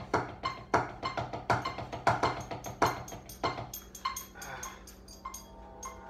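Wooden drumsticks striking a drum practice pad in a quick, even rhythm: about three accented strokes a second with lighter strokes between. A little past halfway the playing turns soft, with quieter, closer taps.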